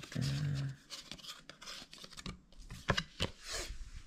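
Handling noise: rubbing, scraping and a few sharp clicks as a handheld camera is moved about, with a short low hum in the first second.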